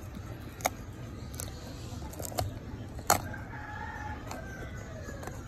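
Crisp snapping and cracking of a green bell pepper's flesh as its stem is pushed down into it: a few sharp snaps, the loudest about three seconds in. A faint, drawn-out call is heard in the background just after that.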